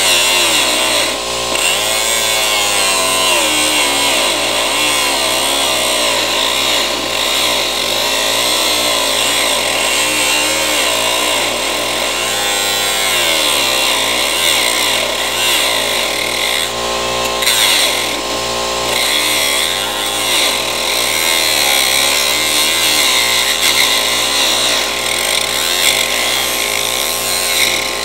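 Handheld power tool running continuously during car body rust repair, its whine wavering up and down as it is loaded against the work.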